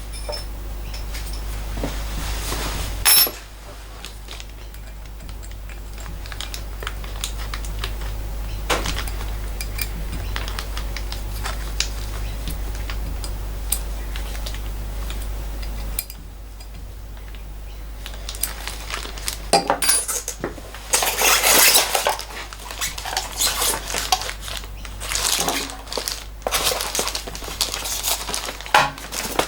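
Metal parts and hand tools clinking and clattering as a die grinder is assembled, over a low steady hum. There is one loud clatter about three seconds in, and a busier run of clinks and knocks in the last ten seconds.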